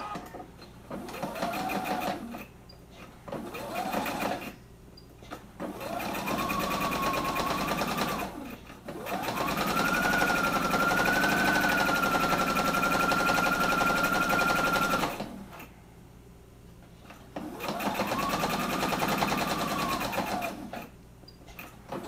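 Electric sewing machine stitching in about five separate runs, its motor whine rising as it speeds up and falling away as it stops. The longest and highest-pitched run comes near the middle and lasts about five seconds.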